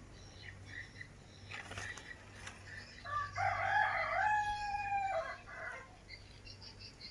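A rooster crowing once: one long call of about two and a half seconds that steps up in pitch and then holds, with faint short chirps around it.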